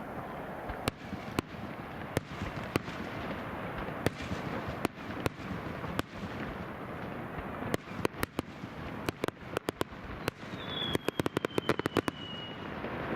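Fireworks going off: scattered sharp bangs, then a rapid run of many bangs near the end, with a whistle that falls slightly in pitch over about two seconds.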